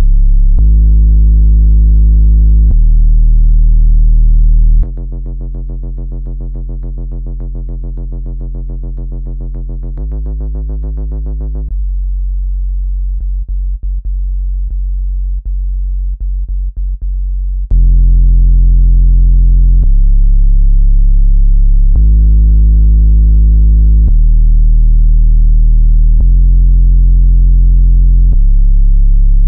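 Synthesized water-eject tones for clearing water out of a laptop speaker: loud, deep bass tones that jump in pitch every couple of seconds. From about five seconds in, a quieter, buzzier tone with many overtones plays. From about twelve seconds, a low hum is broken by clicks. Past about eighteen seconds the deep alternating bass tones return.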